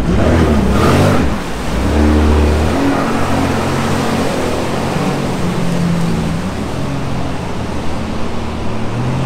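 Personal watercraft engines running hard as two jet skis, one of them a Sea-Doo Spark–based Spark Evo, accelerate across the lake, their pitch rising and falling with the throttle.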